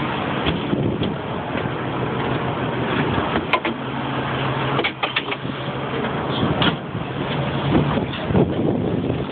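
Engine and hydraulic net drum of a gillnet boat running with a steady hum while the net is hauled in, with a few sharp clicks and knocks from the deck gear in the middle.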